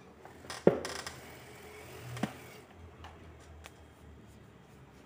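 Cloth rustling as a bulky garment is gathered and turned at a sewing machine, with a few sharp clicks, the loudest about two-thirds of a second in and another about two seconds in.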